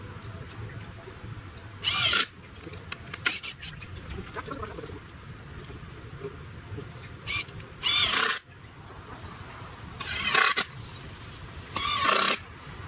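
Power drill running in short bursts of about half a second each, about five times, driving screws into a wooden A-frame, with a few sharp clicks between the first two bursts.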